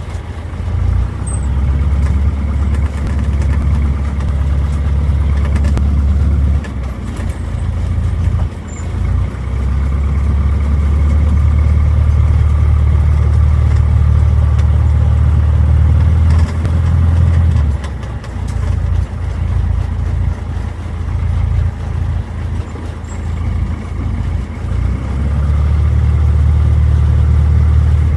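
Cessna 150J's four-cylinder Continental O-200 engine running at low taxi power after landing. A deep rumble swells and fades three times.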